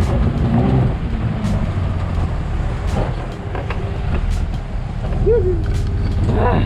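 A vehicle engine running steadily with a low rumble, and a couple of short voice sounds near the end.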